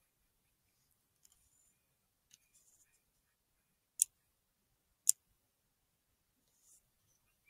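Two short, sharp clicks about a second apart, with faint rustling before them.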